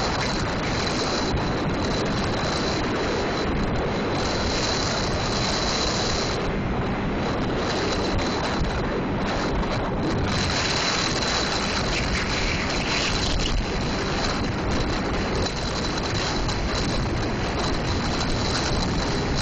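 Steady noise of a boat under way: a Mercury 70 hp outboard running, water rushing along the hull, and wind buffeting the microphone.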